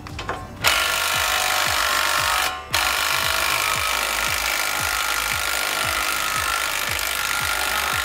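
Small cordless impact wrench running steadily, spinning out an already-loosened 19 mm brake caliper bracket bolt. It starts under a second in, stops briefly about two and a half seconds in, then runs on.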